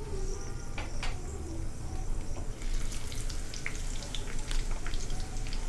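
Whole coriander seeds and chopped green chillies frying in hot oil in a kadhai: a steady sizzle, with sharp crackles and pops that grow thicker about halfway through.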